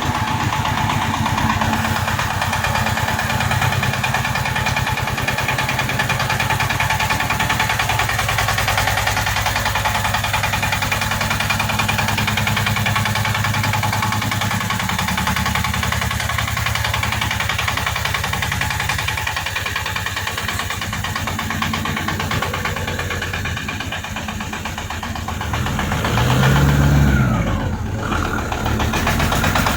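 Engine of a mini tracked tractor running steadily with a fast, even firing beat, briefly rising in pitch and loudness, then dropping back, near the end.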